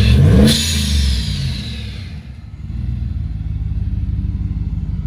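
Chevrolet Silverado pickup's engine revving up briefly as the truck pulls off, falling back within about a second. It then settles to a steady low engine note as the truck rolls on slowly.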